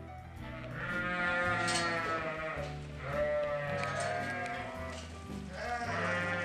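Sheep bleating: three long, wavering calls, over background music with a steady bass line.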